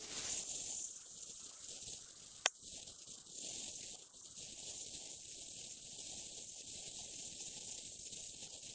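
Steady, loud hiss of recording noise with no other sound. A single sharp click comes about two and a half seconds in.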